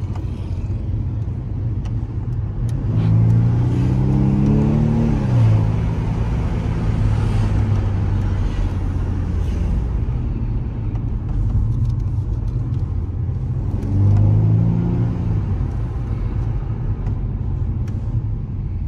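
BMW M135i's turbocharged engine heard from inside the cabin, pulling through two short accelerations. Its note rises a few seconds in and then falls away sharply, and does the same again near the end, over a steady engine and road drone.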